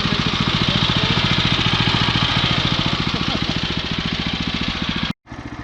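Woodland Mills HM122 portable band sawmill running steadily, its small gas engine pulsing under load while the band blade hisses through Douglas fir. It breaks off abruptly about five seconds in and comes back quieter.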